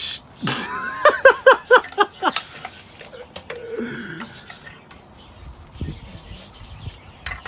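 Light metal clinks and taps of tools and engine parts during the engine install, with a short run of quick rising-and-falling vocal syllables from a person about a second in.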